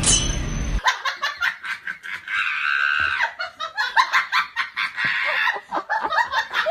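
High-pitched laughter in rapid, choppy bursts of giggling. It starts just under a second in, as music and a short falling whoosh stop.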